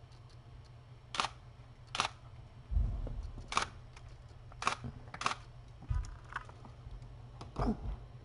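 DSLR camera shutter firing about six separate single shots, each a sharp mechanical click, with a couple of low thumps in between.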